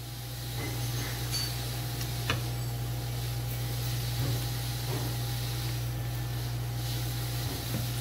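A steady low hum with a faint higher tone under it, with a few light scrapes and clicks from a knife working along the skin of a whole sockeye salmon on a cutting board.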